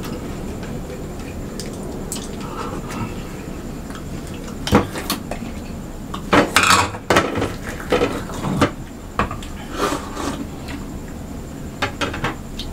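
Bowls and plates knocking and clinking on a table as they are picked up, tipped and set down, in scattered single knocks that start about a third of the way in and come more often later, over a steady low room hum.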